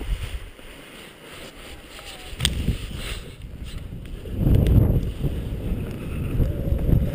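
Wind buffeting the microphone during a paraglider launch, fairly light at first, then a much louder gusting rumble from about four and a half seconds in as the pilot runs off the slope and takes off. A single sharp click about two and a half seconds in.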